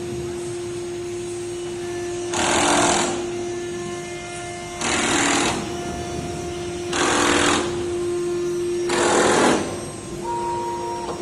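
CNC router running: its spindle gives a steady whine, and about every two seconds comes a louder noisy burst lasting well under a second, as the machine cuts or moves.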